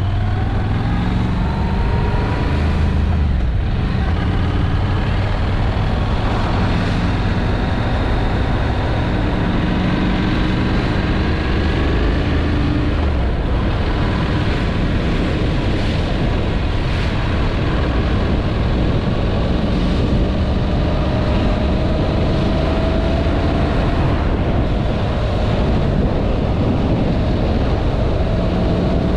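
Honda NC750 motorcycle's parallel-twin engine running on the road, its pitch rising and falling as the bike accelerates and changes gear, over a steady rush of wind and road noise.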